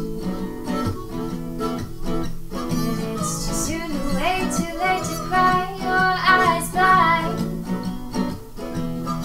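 Background pop song: strummed acoustic guitar with a woman singing, the melody rising to its loudest a few seconds in.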